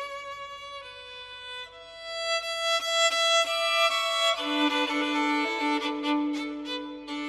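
Background music: a slow melody of long held notes on a violin, growing louder about two seconds in.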